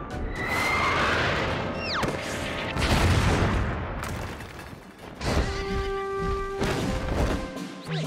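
Cartoon sound effects of rockets rushing past with a whistle, then a heavy crash-landing boom about three seconds in. A music sting with held notes follows.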